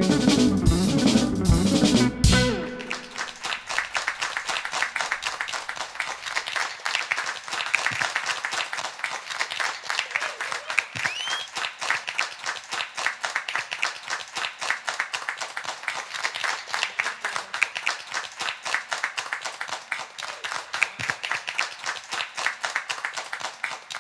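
A jazz trio of hollow-body electric guitar, bass and drums plays its final bars, ending with a last hit about two seconds in. Then a small audience applauds steadily, the clapping thinning toward the end.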